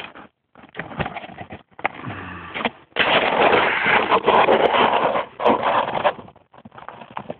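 Camera microphone rubbing and scraping against clothing as the camera is carried. The noise is irregular, with brief cut-outs near the start and a louder stretch in the middle.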